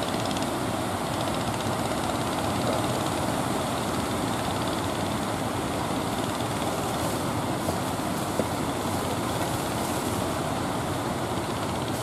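Steady wash and rumble of small surf waves breaking along a sandy beach.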